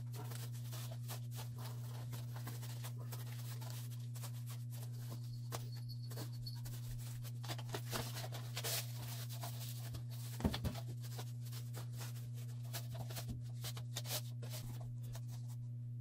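Soft rustling, scraping and small taps of a cotton sock being stretched and wrapped around a piece of cardboard by hand, with one louder knock a little past the middle. A steady low hum runs underneath.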